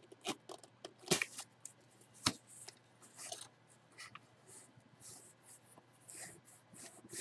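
Cardboard jersey box being handled and its lid lifted open: scattered taps, scrapes and crinkles, with two sharper knocks about one and two seconds in.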